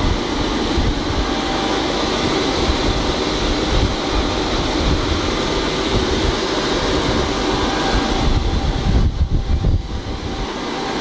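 Factory machinery running at a mesh-belt dryer on a puffed-snack production line: a loud, steady mechanical rush and hum with a faint high whine. About nine seconds in, the hiss dips for about a second under a fluttering low rumble.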